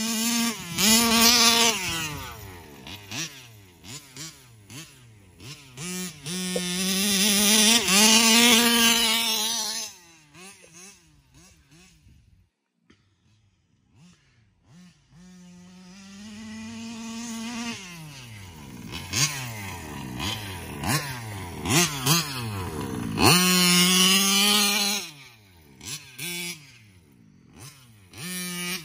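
1/5-scale RC car's small two-stroke petrol engine revving up and falling back again and again as the car is driven, the owner saying it is still running very rich. It falls nearly silent for a couple of seconds near the middle, then builds again.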